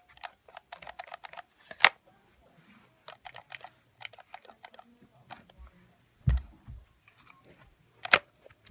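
Irregular crunchy clicks and crackles of an apple being bitten and chewed, with a dull thump a little after six seconds in.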